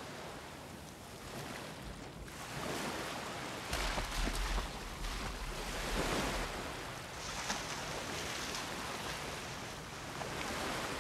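Sea surf: small waves washing in on a sandy shore, the hiss swelling and easing every second or two, with a low rumble about four seconds in.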